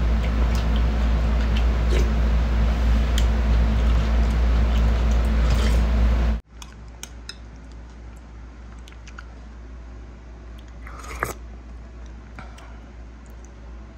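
A person eating rice soup with pork rib, chewing and biting, over a loud steady hum that cuts off suddenly about six seconds in. Afterwards it is much quieter, with light clicks of a metal spoon against the glass bowl and one sharper clink near eleven seconds.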